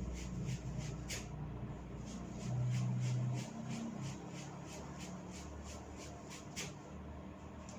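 Hair cracking: strands of hair tugged at the scalp in quick succession, giving a steady run of crisp little snaps, about four a second, with two louder ones, about a second in and near the end.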